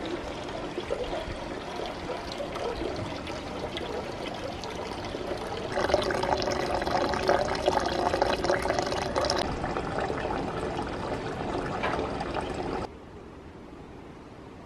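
Hot-spring water pouring and trickling steadily into an outdoor bath. About six seconds in, a louder, closer splashing pour takes over. It cuts off suddenly near the end to a faint steady hiss.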